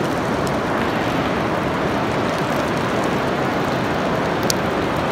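Heavy rain pouring down in a dense, steady hiss, with a couple of sharp ticks of drops striking close by.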